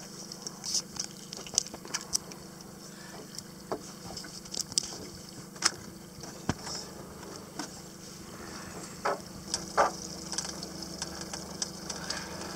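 A flounder longline being hauled by hand over the side of a small boat: water drips and splashes off the line, with scattered irregular clicks and knocks against the hull and a couple of short splashes about nine and ten seconds in, over a steady low hum.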